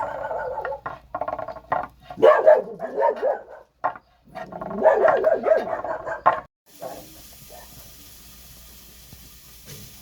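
A dog barking and whining in short, wavering calls for about six seconds, then cut off abruptly, leaving only a faint steady hiss.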